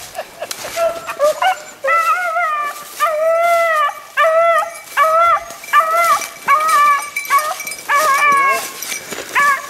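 Beagle hounds baying on a rabbit's trail: a run of drawn-out bawls a little more than once a second from about two seconds in, with shorter cries before that, the sound of the pack running the rabbit.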